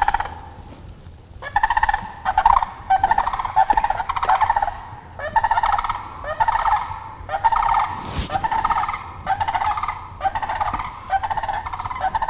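Wild turkeys calling: a quick series of short rattling calls, roughly one a second.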